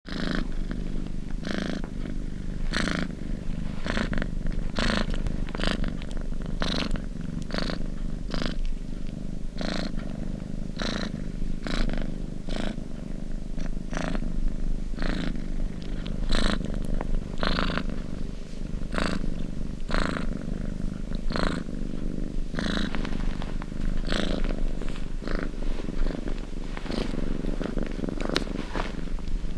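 Domestic cat purring steadily, a continuous low rumble with a breathy swell repeating about once a second.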